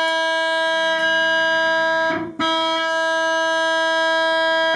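Epiphone Les Paul electric guitar played through an amplifier: a single high note picked and held steady for about two seconds, then picked again and held until it is cut off suddenly near the end.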